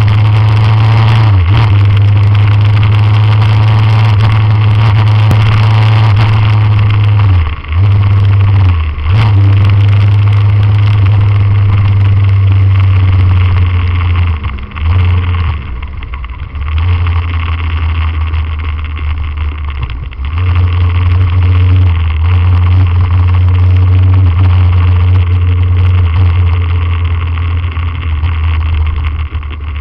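Motorcycle engine running under way, heard from the bike itself, with a few brief dips where the revs drop and pick up again, as at gear changes, and a quieter stretch about halfway through where the bike eases off.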